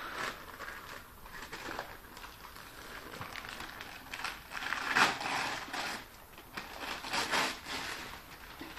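Wrapping paper being torn and crumpled by hand as a present is unwrapped, in a series of uneven rips, the loudest about halfway through.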